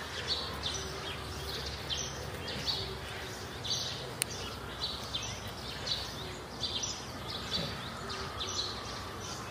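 A bird calling over and over in short high chirps, about once or twice a second, over a steady outdoor background hiss.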